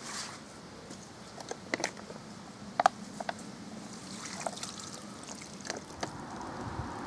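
Handling noises at a carp unhooking cradle: scattered clicks, knocks and the rustle of a plastic packet, with the sharpest clack about three seconds in.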